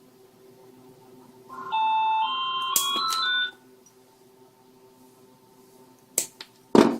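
A short electronic chime, a two-second tune of steady beeping tones stepping in pitch, about a second and a half in. Sharp clicks follow near the end, the loudest just before it ends.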